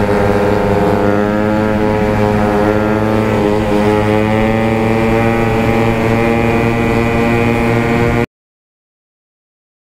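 Honda Grom's 125 cc single-cylinder engine running steadily at cruising speed, heard from on the bike, with wind rush. The sound cuts off abruptly about eight seconds in.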